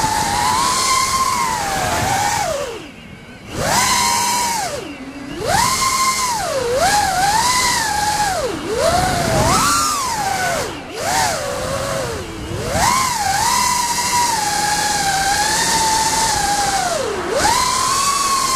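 FPV racing quadcopter's brushless motors (RCINPOWER GTS 2205 2350KV on five-blade 5045 props) whining as heard from the onboard camera, the pitch rising and falling with throttle. The throttle is chopped twice, about three and five seconds in, and the whine drops away briefly, with a steady rush of wind over it.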